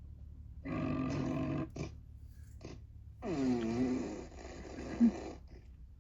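Alexa's "pig fart" novelty sound effect played through a smart speaker: pig grunts and fart noises in a few bursts, with a short sharp blip near the end as the loudest moment.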